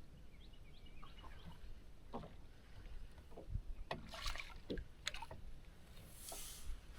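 Faint scattered knocks and taps on a boat, over low water lapping and rumble, with a short hissing splash near the end.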